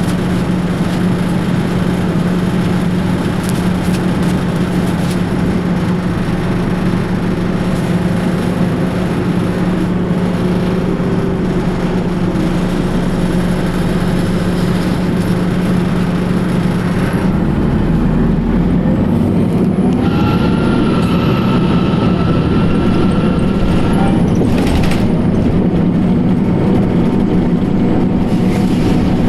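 A 2004 New Flyer D60HF articulated bus's Detroit Diesel Series 50 EGR engine running under way. The steady hum shifts about two-thirds of the way through, and a thin steady whine sounds for a few seconds after that.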